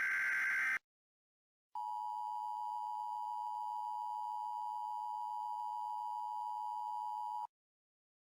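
Emergency Alert System alert: the last SAME header data burst, a buzzy electronic chirping, ends just under a second in. After a second of silence the steady two-tone EAS attention signal sounds for about six seconds and then cuts off abruptly.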